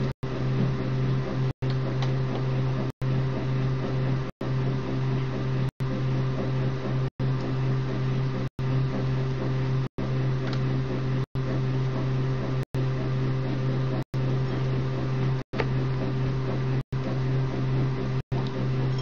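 Steady low mechanical hum with a few steady higher tones, typical of a running household appliance. It cuts out completely for an instant about every second and a half.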